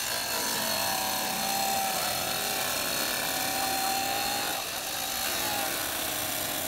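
Lackmond Beast 10-inch wet tile saw's blade cutting through a porcelain tile with water sprayed onto the blade: a steady whine over grinding noise that comes on suddenly at the start and holds through the cut.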